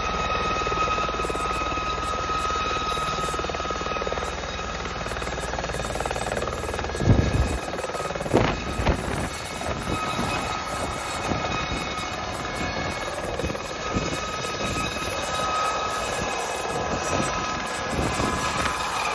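Aérospatiale SA 341F Gazelle helicopter at flight power, lifting off into a low hover: a steady turbine whine over the rotor noise. A few loud low buffets come about seven to nine seconds in.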